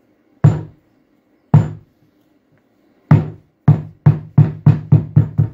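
Rubber mallet striking a block laid on the carpet edge, driving the carpet down onto the gripper of an aluminium Zee Bar to lock it in place. About ten knocks: three spaced about a second apart, then a quick run of seven.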